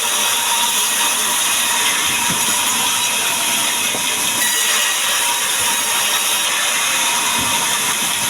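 Power saw running steadily for board cutting: a loud, even hiss with no change in level.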